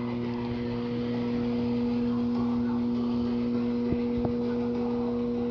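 Steady machine hum with a few pitched overtones, with two faint clicks about four seconds in.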